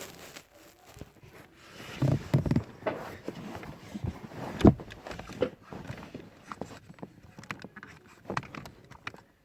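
Irregular handling knocks, taps and clicks, with a cluster of louder thumps about two seconds in and the sharpest knock a little before the middle.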